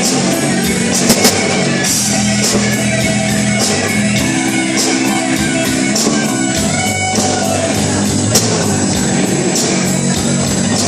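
Local rock band playing live, guitar over a steady beat.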